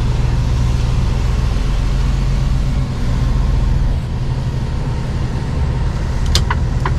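Mercedes-Benz Actros truck's diesel engine running low and steady, heard inside the cab as the truck pulls out and turns. Near the end a turn indicator starts ticking, about three clicks a second.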